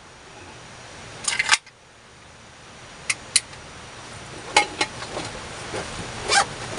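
Handling noise: a few short, sharp clicks and knocks scattered over a steady faint hiss.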